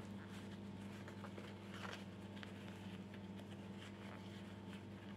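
Faint rustling and light scratching of fingers handling a crocheted amigurumi head while fitting a plastic safety eye into the stitches, with scattered small clicks over a steady low hum.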